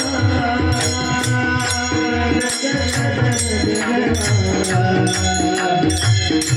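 Devotional Varkari bhajan music: a mridang drum keeping a steady rhythm with regular ringing strokes of small hand cymbals over sustained melodic tones.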